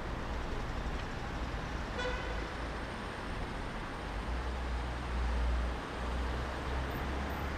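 Street traffic noise from cars stuck in a jam, with one brief car horn toot about two seconds in.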